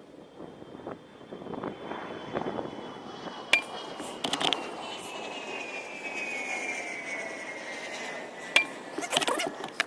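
Two sharp air rifle shots about five seconds apart. Under them runs a faint high tone that slowly falls in pitch.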